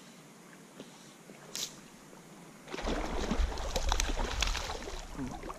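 Water sloshing and splashing close to the microphone for about three seconds, starting about halfway in, with many small knocks and a low rumble; before it, only faint background with a single click.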